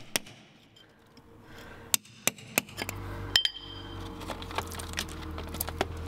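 Sharp, irregular clicks and taps of a hand tool chipping away the mortar flashing around a stained-glass window's frame, with small clinks against the glass and metal. A low steady hum comes in about halfway.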